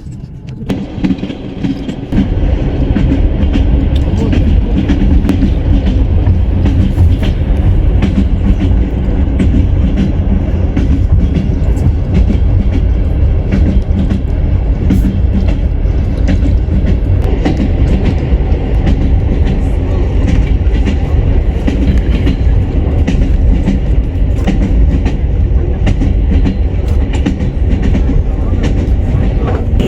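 Train wheels clattering over the rail joints with a steady rumble, rising in level about two seconds in.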